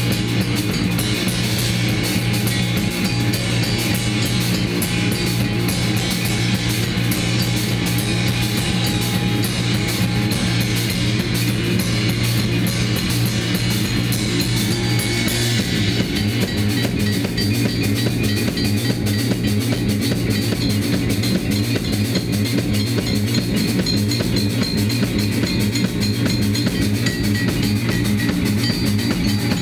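A rock band playing loudly and continuously, with drum kit and guitar, and a change in the sound about halfway through.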